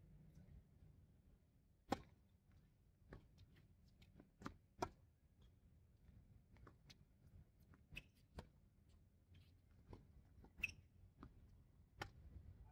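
Tennis rally on a hard court: a sharp crack of the racket striking the ball on a serve about two seconds in, then a run of fainter racket hits and ball bounces going back and forth, with another strong hit near the end.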